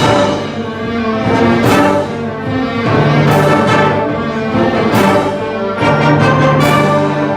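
Large instrumental ensemble playing: sustained low notes under higher parts, punctuated by four loud crashes about every second and a half.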